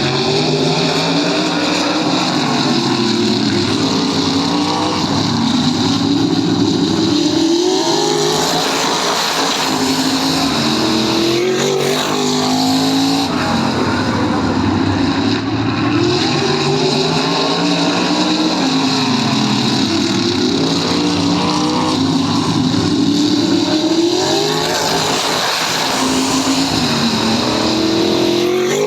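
Loud tin-top saloon race car engines, revving up again and again, each time climbing in pitch over a few seconds and dropping back as the next gear or lift comes, with several cars overlapping.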